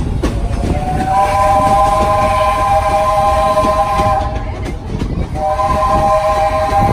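Steam locomotive's chime whistle blowing two long blasts, a steady chord of several notes; the second blast begins about a second after the first ends and is still sounding at the end. Underneath is the constant rumble and clatter of the train rolling.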